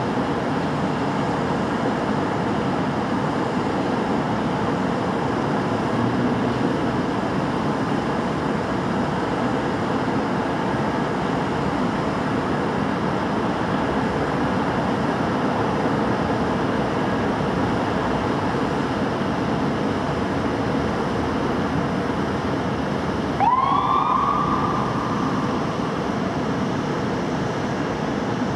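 Steady hum of city traffic. About 23 seconds in, a fire apparatus siren starts up: its pitch sweeps up quickly, holds for a couple of seconds and then fades.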